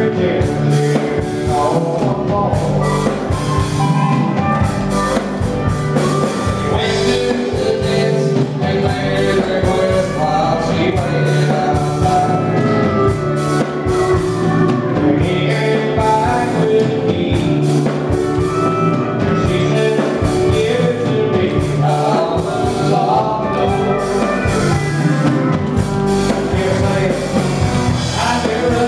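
Live country band playing a song: a man sings lead over strummed guitar, with drums keeping a steady beat.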